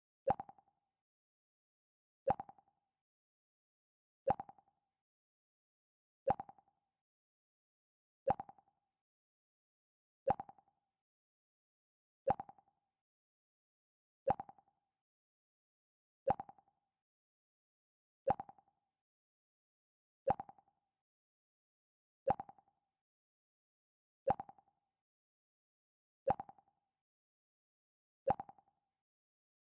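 Mac OS X 'Pluck' system alert sound: a short plucked tone that dies away quickly, repeated every two seconds.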